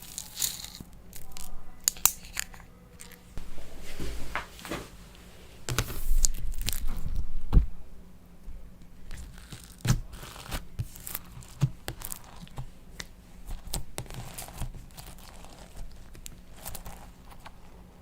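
Slime being kneaded and stretched by hand: irregular sticky crackles, pops and tearing sounds, with a louder stretch of crackling about six seconds in.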